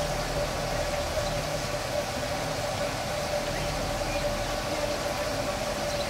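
A steady machine hum, with a constant mid-pitched tone over a low rumble.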